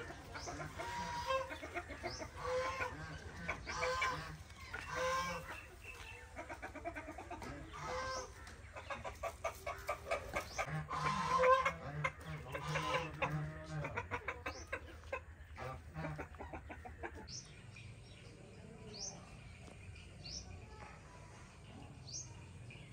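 Chickens clucking, a string of calls every second or so with a louder flurry around the middle. Near the end small birds chirp a few short rising notes, and a steady low hum underneath stops about three-quarters of the way through.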